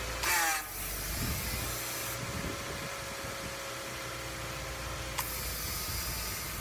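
Car engine running steadily, with a thin, steady whine over the rumble; a short falling whine sounds about half a second in.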